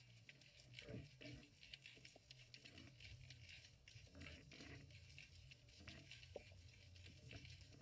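Faint, irregular crackling and ticking heard underwater through a camera's waterproof housing, over a low steady hum.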